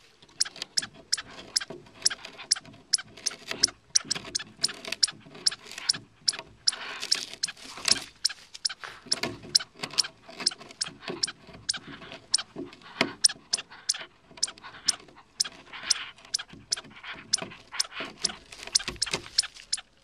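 Small terrier-type dog gnawing on the broken edge of a weathered wooden deck board: a quick, irregular run of sharp cracks and snaps as its teeth bite and splinter the wood.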